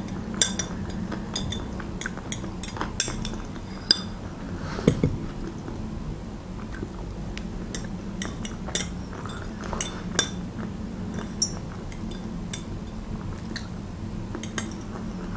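Metal fork scraping and tapping against a small white dish, irregular clinks as the last of the Olivier salad is scooped up, over a faint steady low hum.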